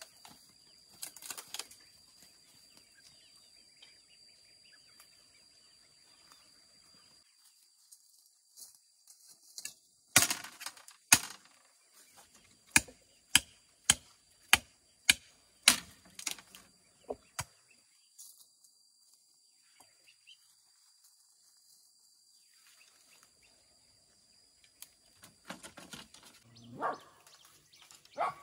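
About a dozen sharp cracks in quick succession, roughly two a second, from bamboo being worked by hand to build a fence. Before and after the cracks there is only quiet rustling.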